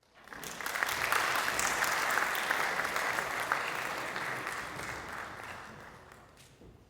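Audience applauding: a dense patter of clapping that swells quickly, holds for a few seconds, then dies away near the end.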